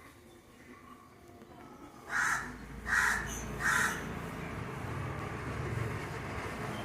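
A crow cawing three times in quick succession, about a second apart, over a low steady background hum.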